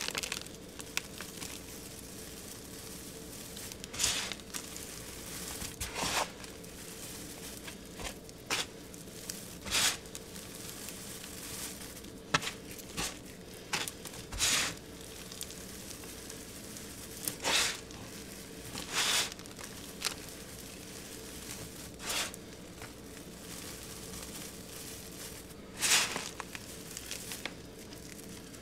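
Hands squeezing and crumbling a pink crumbly material mixed with confetti: brief crunchy, crinkling bursts every one to four seconds as handfuls are pressed and broken apart, with soft rustling between them.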